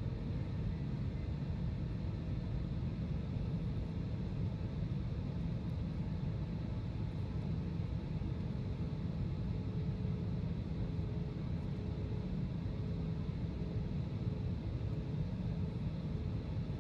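Airliner cabin noise in cruise: a steady low rumble of the jet engines and airflow heard from a window seat, with a faint steady hum.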